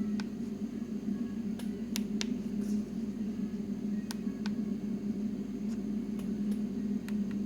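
Keys being pressed on a TC5540 CNC control panel: about ten short, sharp clicks at irregular intervals over a steady machine hum.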